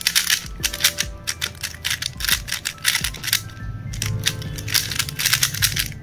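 Rapid, irregular clicking and clacking of a QiYi smart cube's plastic layers being turned fast during a speedsolve. The clicking stops near the end as the solve is finished. Background music plays underneath.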